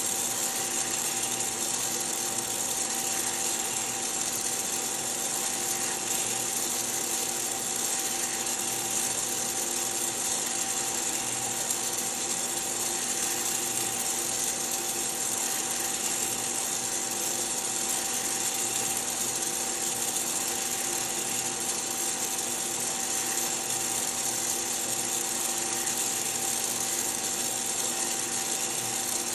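Hottop coffee roaster running its cooling cycle: a steady motor hum with a fixed whine over a high hiss from the cooling fan, as the stirring arm turns the freshly roasted beans in the cooling tray.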